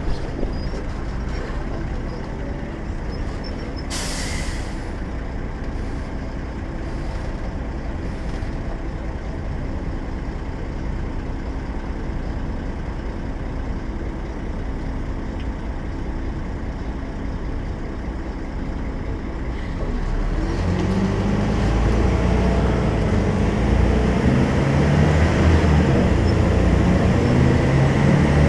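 Volvo B12M bus's 340 hp diesel engine running steadily, with a short hiss of released air about four seconds in and a few fainter hisses after it. About twenty seconds in, the engine grows louder and deeper, working harder under load.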